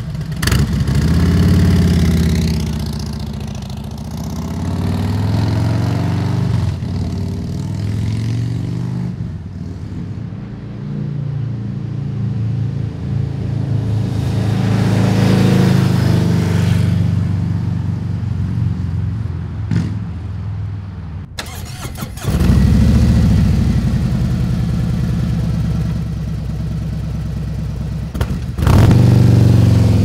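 2017 Harley-Davidson Street Glide's Milwaukee-Eight V-twin running through aftermarket slip-on mufflers. It rises sharply at the start, then pulls away and rides past, loudest about halfway through and fading off. After a sudden cut about two-thirds in, it runs loud again, with another sharp rise near the end.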